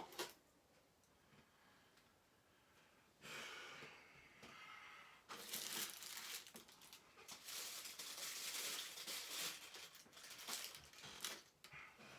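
Packaging material crinkling and rustling as it is handled, in two stretches: a short one a few seconds in and a longer, louder one through most of the second half, after a single click at the start.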